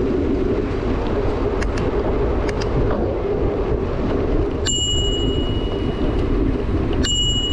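A small bell struck twice, about two and a half seconds apart, each strike ringing clearly and fading within a second, over a steady rushing noise.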